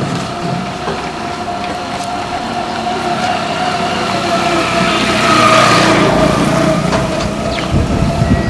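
A motor vehicle engine running steadily, with a steady whine that swells louder about five seconds in.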